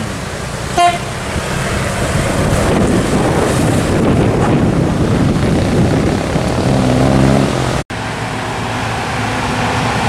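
Large tour buses passing on a road: steady engine and tyre noise, with a short horn toot about a second in. Near eight seconds the sound cuts abruptly to another passing bus.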